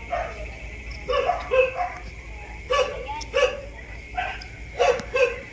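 A dog barking repeatedly in short barks, often two in quick succession, about nine barks in all, over a steady high-pitched drone.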